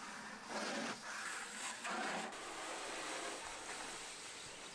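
Water hissing steadily from a garden hose spray nozzle onto the front of a car.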